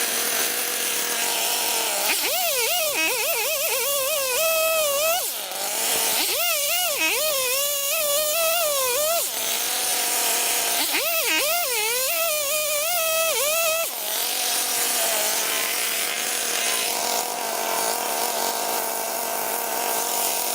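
Husqvarna 359 two-stroke chainsaw revved up three times, each time rising in pitch and then wavering as it cuts. It drops back to a steady idle in between.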